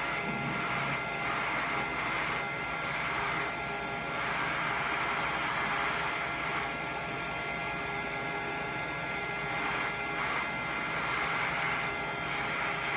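Electric heat gun with a nozzle blowing steadily: a fan-driven rush of air with a steady motor hum. It is shrinking adhesive-lined heat-shrink tubing onto a phone charging cord.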